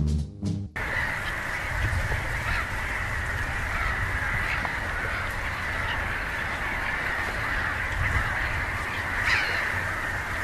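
Wetland ambience: a steady, dense chorus of many birds calling among the reeds, with a low rumble underneath. A jazzy theme tune cuts off suddenly under a second in.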